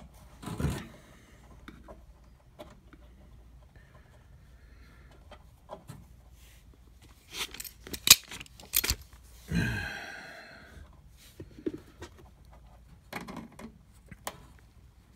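Hands and pliers working wires inside an air fryer's sheet-metal housing: scattered clicks, taps and rustles, with a cluster of sharp metal clicks about eight seconds in and a short scrape right after.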